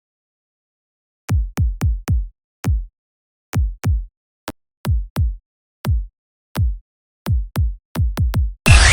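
Drum-machine kick drum playing alone in a break of an electronic dubstep track. Each short punchy hit drops quickly in pitch, and the uneven pattern crowds into fast repeats near the end. Just before the end the full track, with its gliding synth lines, comes back in.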